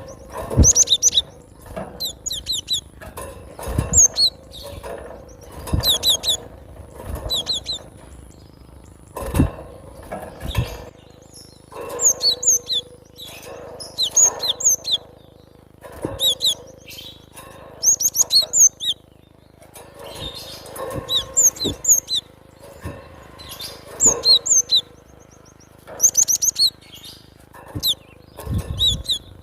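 Cinereous tit (gelatik batu) singing loudly: short phrases of quick, sharp, high notes, repeated every second or two, with a few low thumps among them.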